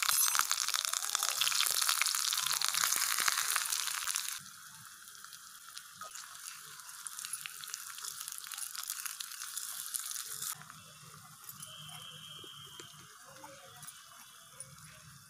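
Chopped onion and green chilli sizzling in hot oil in a miniature clay pot. The sizzle is loud at first, drops sharply about four seconds in, and fades further about ten seconds in, with light stirring from a small wooden spoon.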